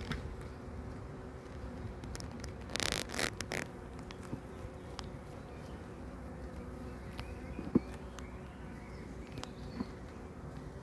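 Honeybees humming steadily around an open hive, with a short scraping noise about three seconds in and a single knock later on.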